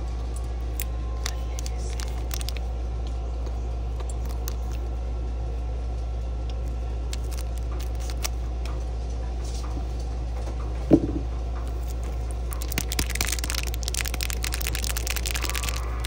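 Foil trading-card booster pack being handled and torn open: a few light clicks, one sharp thump about two-thirds of the way through, then dense crinkling and tearing to the end. A steady low hum runs underneath.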